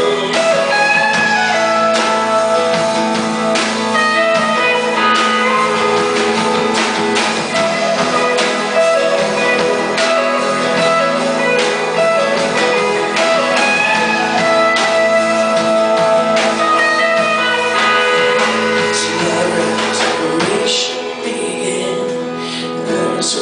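Live band playing an instrumental passage of a worship song, guitar to the fore over sustained chords, with a steady beat; the sound thins a little near the end.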